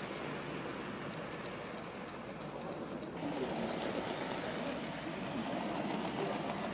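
HO-scale model train running on the layout track: a steady rolling hum and rush mixed with shop room noise. About three seconds in it turns abruptly a little louder.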